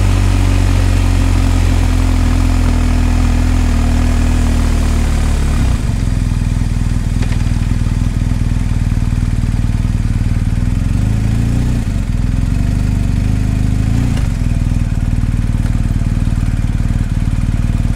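Motorcycle engine running at low road speed with a steady low note. The note drops about six seconds in, and the throttle is eased open briefly twice later on.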